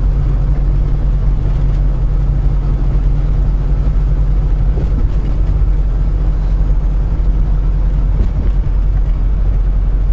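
Semi truck's diesel engine and tyres in a steady, even drone, heard from inside the cab while cruising at speed, with the low rumble strongest.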